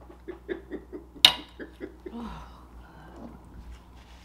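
Laughter in quick, even pulses of about five a second, with a single sharp, loud smack about a second in, then a softer voice sound falling in pitch.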